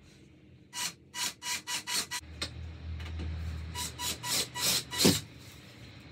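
Abrasive hand strokes on a wooden board, like sanding or rasping: a quick series of short scraping strokes, about three a second, in two runs with a short pause between them. The last stroke is the loudest.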